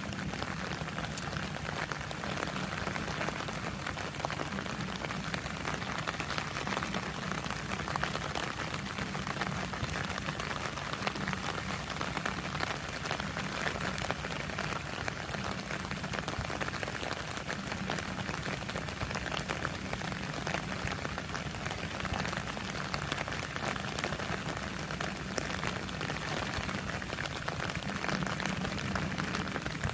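Heavy rain falling steadily, a dense patter of drops on surfaces.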